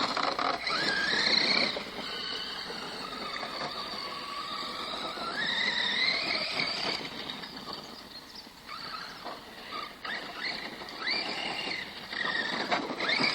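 Radio-controlled car's motor and drivetrain whining, the pitch rising and falling repeatedly as the throttle is worked in snow.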